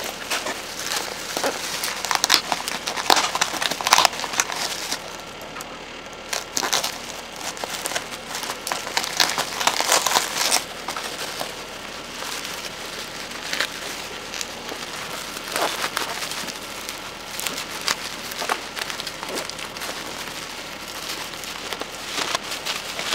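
Packaging being handled and unwrapped, crinkling and crackling in irregular bursts.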